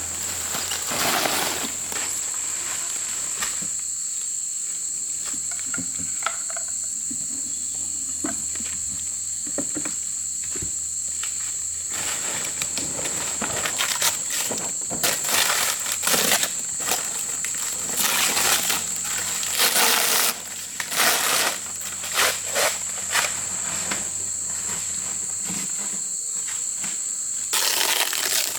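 A steady high-pitched drone of insects. Many short rustling bursts come over it, most of them in the second half.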